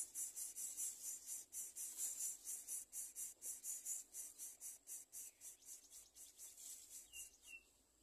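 Greater coucal nestlings' raspy begging calls, a rapid regular pulsing of about four to five rasps a second that dies away as the parent leaves the nest, stopping about seven seconds in.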